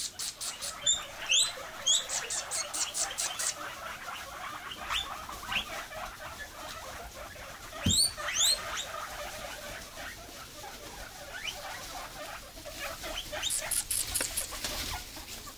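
Several guinea pigs wheeking: repeated rising, whistle-like squeals, the loudest around a second in and again near the middle, with runs of quick high chirps at the start and near the end. This is the excited food-begging call they make around snack time.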